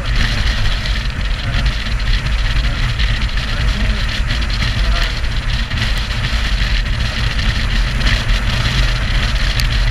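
Motorcycle riding along at a steady pace: a loud, even rush of wind on the front-mounted microphone, with the engine and tyre noise running underneath.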